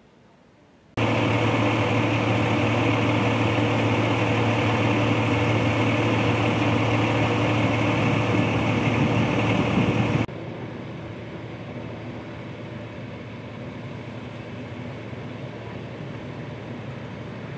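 Loud, steady hum of an idling vehicle engine that starts abruptly about a second in. About ten seconds in it drops suddenly to a quieter steady engine hum.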